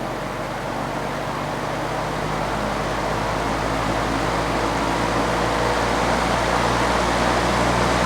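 Vintage General Electric W-26 electric box fan running in reverse, just switched to medium speed. A steady rush of air over a low motor hum grows gradually louder as the motor picks up speed.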